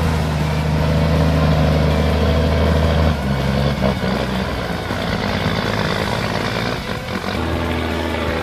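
Heavy logging truck's diesel engine running steadily with a deep, even drone; the lowest part drops away about three seconds in and returns near the end.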